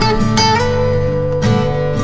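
Background music: acoustic guitar playing, notes plucked and strummed with a changing melody.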